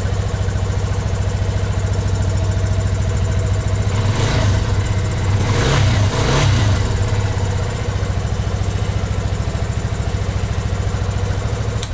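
Yamaha Fazer 250's single-cylinder four-stroke engine idling steadily, with a couple of light throttle blips about four to six seconds in. It runs normally now that a worn starter motor brush has been replaced.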